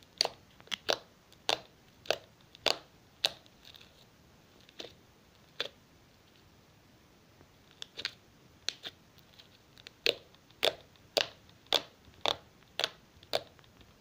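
Homemade slime being squeezed and pressed by hand on a wooden tabletop, giving a string of short, sharp pops and clicks, a few a second, with a pause of a couple of seconds midway.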